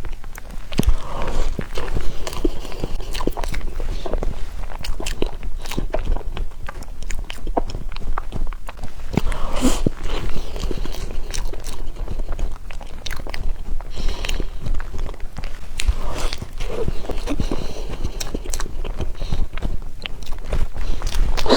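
A person chewing and eating sesame crepe cake close to the microphone: soft, wet mouth sounds with many small clicks throughout.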